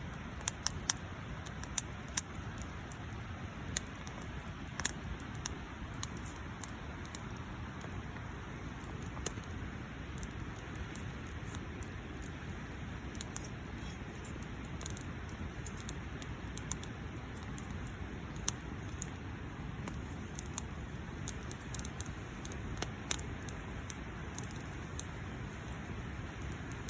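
Wood campfire burning: a steady hiss with irregular, sharp crackles and pops.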